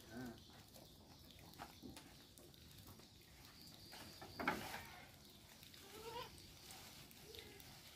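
Goats bleating in short rising calls a few times from a wooden pen, the cries of goats wanting to be fed, which the keeper puts down to a bottle-fed kid wanting its milk. About halfway through comes a brief, louder rustling thump as leafy mahogany branches are pushed into the pen.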